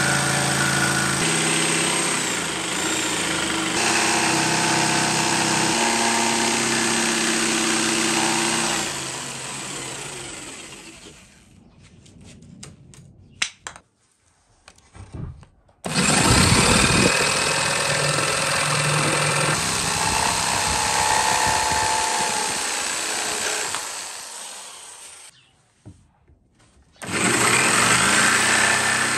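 Corded electric jigsaw cutting through plywood, its motor and blade running steadily. It runs down and stops twice for a few seconds, first about ten seconds in and again about twenty-four seconds in, each time starting up again.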